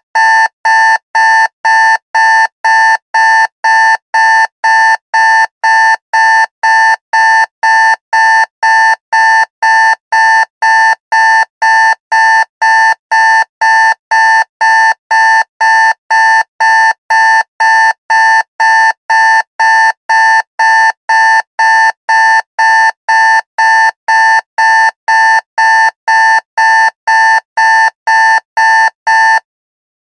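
Digital alarm clock beeping: one high electronic beep repeated at an even pace, a little under two a second, every beep at the same pitch. It cuts off shortly before the end.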